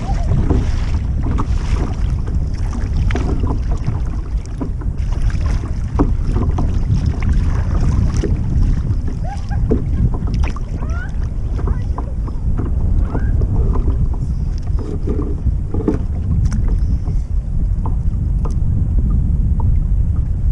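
Wind buffeting the microphone in a constant low rumble, with water lapping and slapping against a kayak's hull in many short splashes.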